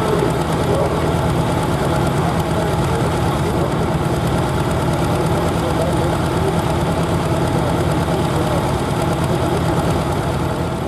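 Pulling tractor's turbocharged diesel engine idling steadily and loudly while the tractor sits stopped on the track.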